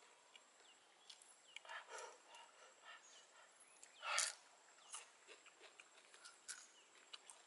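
A person eating cooked crab: small crunches and cracks of crab shell with mouth clicks, and one louder, sharp crunch about four seconds in as a piece is bitten.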